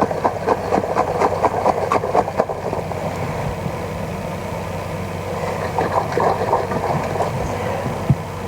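Kitchen cooking noise: a steady low hum with irregular light clicks and taps, thickest in the first couple of seconds and again near the end.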